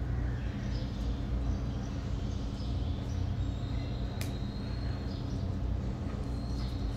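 Steady low background hum with faint, short high-pitched chirps, and a single sharp click about four seconds in.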